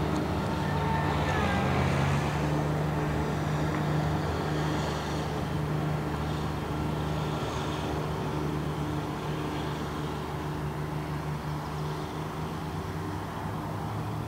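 An engine running with a steady low hum and its overtones, slowly fading.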